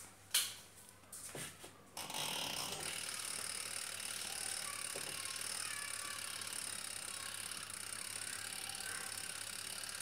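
A few clicks, then about two seconds in the National NA 250T washing machine's motor starts up and runs steadily with an even whirring and hiss.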